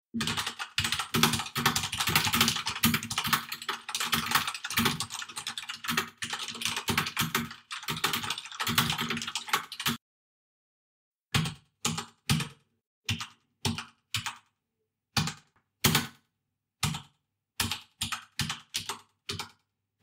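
Computer keyboard typing: fast, continuous keystrokes for about ten seconds, then after a short pause slower, separate key presses.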